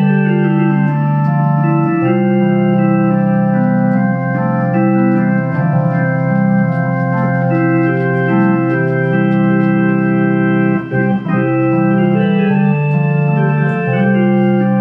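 Hammond T-series home organ with a built-in Leslie, played in sustained chords, the held notes changing every second or so, with a short break in the sound a little past the middle.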